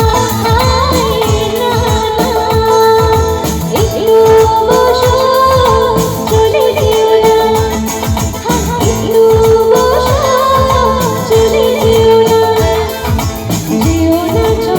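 Loud Bollywood-style song music played through a PA sound system: a held, gliding melody line over a steady drum beat.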